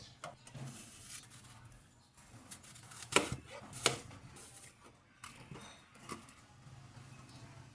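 Kitchen handling sounds: a few sharp knocks and clicks of kitchenware, the two loudest a little after three seconds and just before four seconds in.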